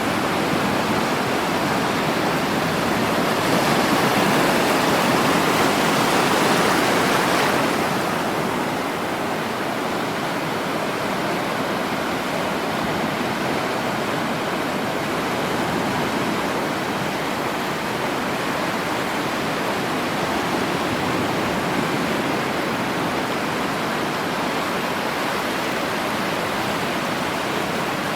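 Sea waves washing on a shore: a steady rush of surf, with one wave swelling louder a few seconds in and falling away at about eight seconds.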